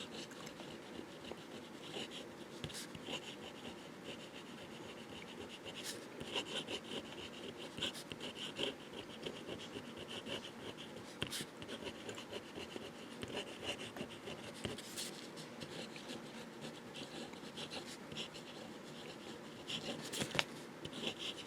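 Fountain pen with a fine 14K gold nib writing on paper: a faint, irregular scratching of pen strokes, with a few sharp ticks.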